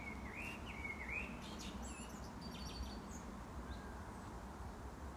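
Common blackbird singing: a low, fluting warbled phrase in the first second or so, followed by a burst of short, high squeaky notes that ends about three seconds in.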